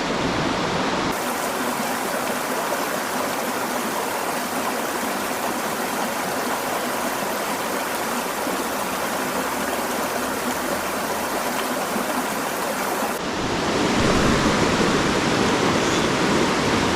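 Steady rush of water from a mountain stream flowing over rocks. Its tone changes abruptly about a second in and again later on.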